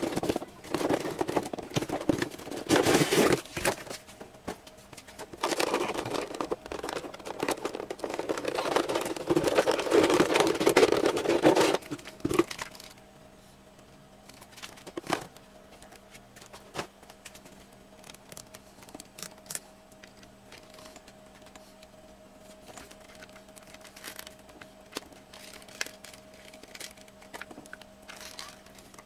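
Cardboard toy box and plastic packaging being handled and opened, loud and busy for about the first twelve seconds. Then it turns quiet, with only occasional light clicks of the figure being handled over a faint steady hum.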